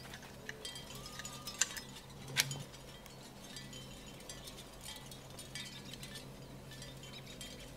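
Small parts of a model school bus clicking and ticking as they are handled and fitted, with steel tweezers on the tiny stop-sign piece; two sharper clicks about one and a half and two and a half seconds in.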